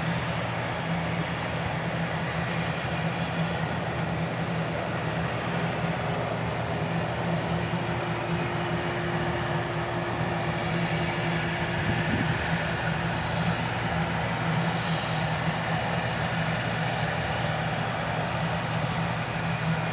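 ATR 72-600's twin turboprop engines and propellers running with a steady, unchanging drone.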